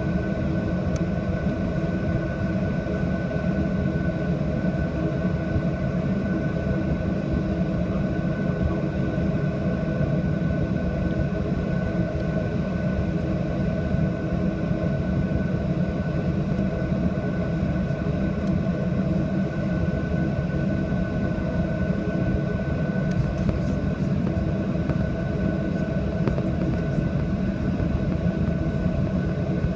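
Jet airliner's engines and airframe rumble, heard steadily from inside the passenger cabin, with a constant whine from the engines.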